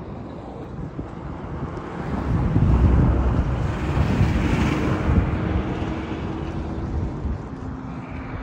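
Wind buffeting the microphone in a rough, low rumble that swells in the middle. A faint steady hum runs under it from about halfway.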